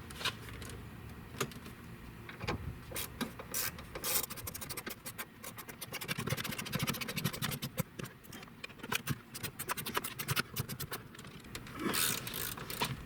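Clinking and rattling of tools and small metal parts being handled, with a dense run of quick clicks in the middle and a couple of brief rustles.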